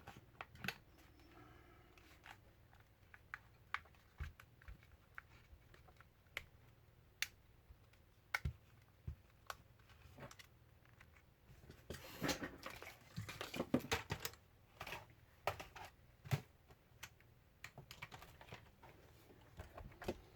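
Scattered light clicks and taps of small hard parts being handled on a work surface during a laptop battery pack repair, with a denser run of clicking and rustling about twelve to fourteen seconds in.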